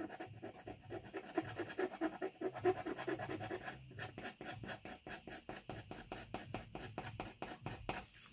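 A small metal scraping tool scratching rapid short strokes through a layer of soft oil paint on thick paper, several strokes a second: sgraffito lines cut down to the red layer beneath.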